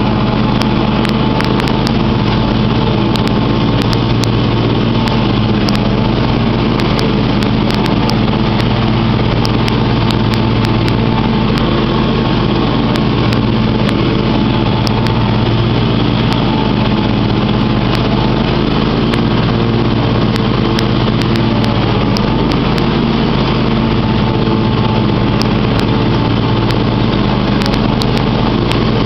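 John Deere X500 Multi-Terrain riding mower's 25 hp engine running steadily as the mower drives across the lawn, a constant loud drone that does not change in speed.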